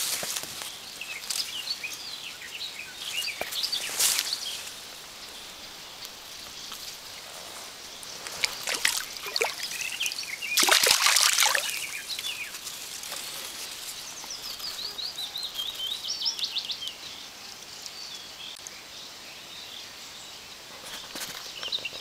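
Small songbirds chirping over the steady rush of a stream, with a fast run of falling notes from one bird about two-thirds of the way through. Short bursts of rustling and splashing noise stand out, the loudest about halfway through.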